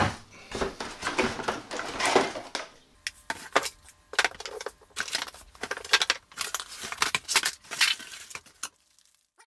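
Unpacking a reverse-osmosis filter kit: packaging rustles, then small hard plastic parts clatter and click against each other as they are handled. The sound stops abruptly near the end.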